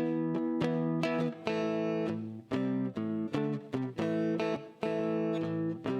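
Guitar playing an instrumental passage between verses: a run of chords and single notes with frequent short stops between them.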